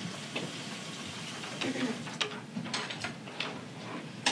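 Sliced mushrooms sizzling in a frying pan, with a wooden spoon stirring and knocking against the pan several times.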